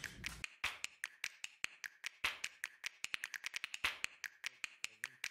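A paintbrush dabbing and working rust-remover gel over the rusted steel top cover of a CD player, making quick, irregular taps, several a second.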